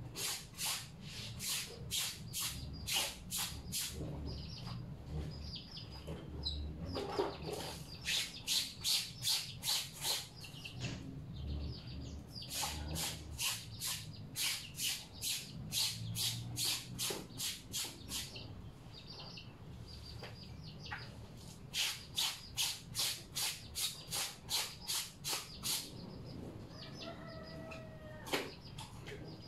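Clothes being scrubbed by hand in a washing basin: quick rhythmic scrubbing strokes, about two to three a second, in runs of several seconds with short pauses. A rooster crows near the end.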